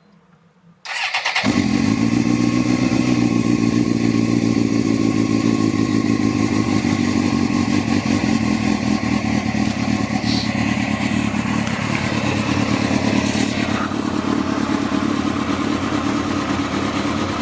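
Suzuki GSX-R750's inline-four engine starting about a second in, catching at once, then idling steadily.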